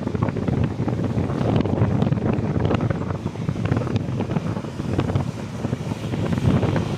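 Wind blowing across the microphone: a rumbling low roar that swells and eases with the gusts, with scattered small ticks.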